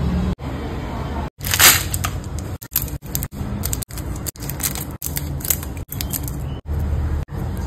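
Scissors snipping open plastic candy wrappers, with crisp crinkling and short sharp snips. The loudest is a sharp rip about one and a half seconds in, and a low steady hum runs underneath.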